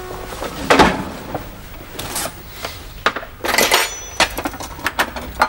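Crockery and cutlery clattering as they are picked up and handled on a table: a series of separate knocks and clinks, busiest in the second half.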